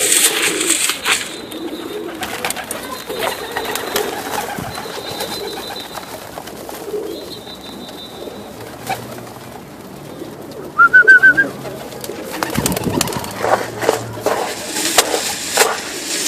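Domestic pigeons cooing, with a few short high chirps and scattered sharp clicks and knocks, more of them near the end.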